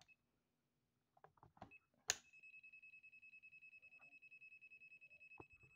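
ANENG ST170 clamp meter's non-contact voltage (NCV) buzzer beeping rapidly and steadily, a high pulsing tone that starts about two seconds in just after a click. It signals that the meter senses a live mains wire.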